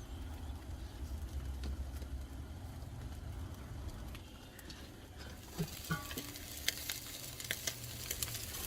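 Lamb chops and vegetables sizzling on a charcoal grill. Sharper pops and crackles come in from about five and a half seconds.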